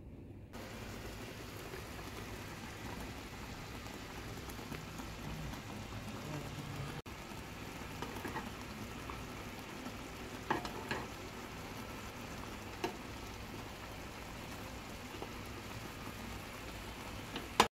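Stuffed eggplants simmering in tomato sauce in an open pan, bubbling and sizzling steadily. A few light clicks of a spoon against the pan come around the middle.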